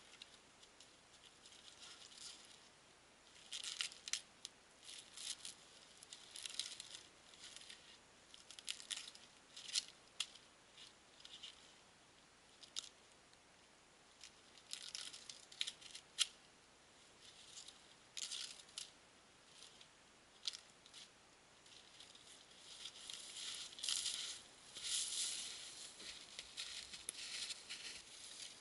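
Dry paper birch bark being peeled and torn off the trunk by hand, in short, irregular rips and crinkles with a few sharp snaps.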